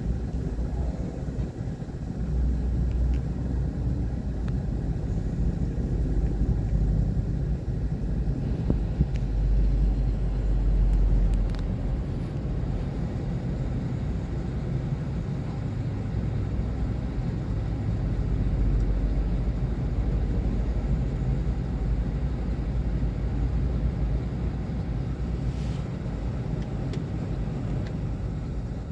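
Excavator's diesel engine running with a deep, steady sound that swells louder a few times as it works, with a couple of faint clicks.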